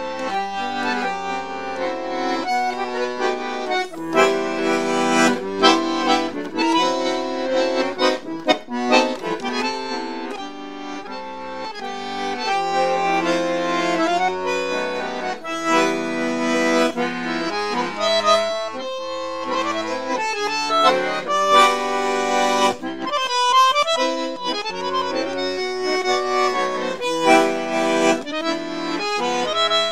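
Solo bandoneon playing a Misiones folk song, with full held chords under the melody and quick clipped runs of notes.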